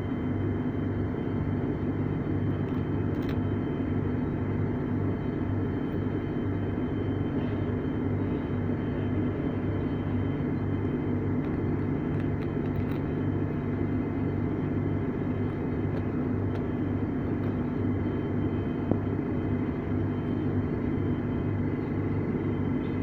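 Steady hum of a London Underground 2009 Stock train's on-board equipment as it stands at a station platform, heard from inside the carriage. A low throb pulses about twice a second under it, with faint steady high whines on top.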